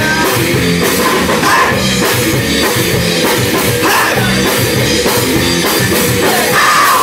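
A rock band playing live with loud drum kit and distorted electric guitar, an instrumental passage with guitar bends and no singing.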